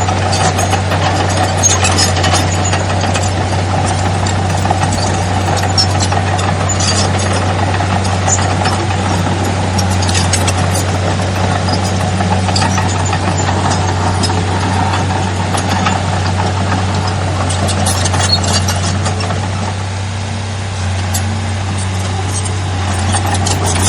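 Heavy diesel engine of an earthmoving machine running steadily, with scattered metallic clanks and knocks over it.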